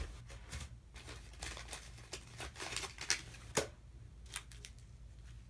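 Faint handling noises: scattered light taps and rustles, about half a dozen, over a low steady hum.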